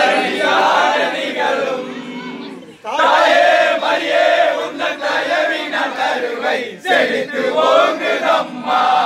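A group of voices singing a devotional hymn together, loud and with long held notes, breaking off briefly about three seconds in before carrying on.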